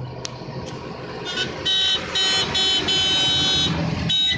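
Vehicle horn honking in a quick series of short blasts with one longer one, starting just over a second in.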